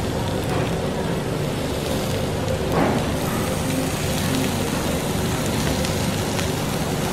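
Beef, prawns and vegetables sizzling steadily on a hot stone grill plate, with a steady low hum underneath. There is one brief utensil scrape about three seconds in.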